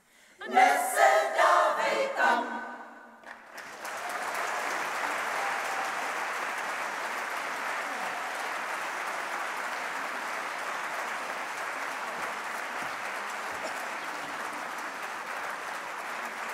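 Women's choir singing a cappella, its final phrase cut off sharply about three seconds in; then the audience breaks into steady applause that carries on.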